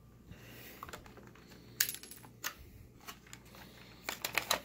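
Small sharp clicks and taps of wire body clips being pulled from an RC buggy's body posts and the plastic body shell being handled, with the loudest click about two seconds in and a quick run of clicks near the end.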